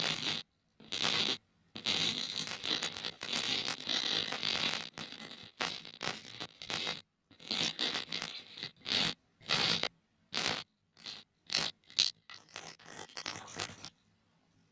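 Earphones rubbed and scraped to make scratchy, zipper-like rasps in quick repeated strokes, with one longer continuous rasp a couple of seconds in; the strokes stop near the end.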